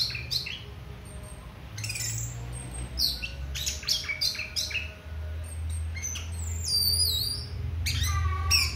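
Caged orange-headed thrush singing: a quick run of sharp chirps and whistled notes, with high falling whistles about seven seconds in and a layered falling phrase near the end.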